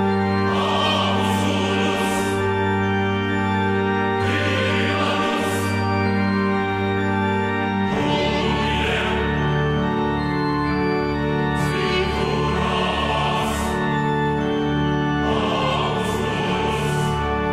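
Background music of slow, held chords, with a change of chord about eight seconds in.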